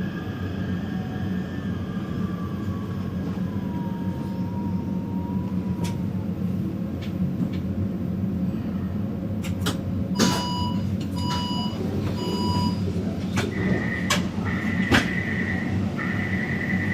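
Taipei Metro train interior: a steady rumble with a slowly falling motor whine as the train slows. Then come a few clicks, three short beeps about ten seconds in, and from about thirteen seconds a repeated high-pitched beeping: the train's door chimes and door warning signal at a station.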